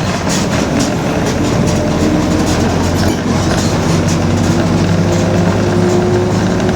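Mercedes-Benz OF-1721 city bus under way, its diesel engine running steadily with light rattling from the body. About halfway through a steady whine comes in: the differential droning.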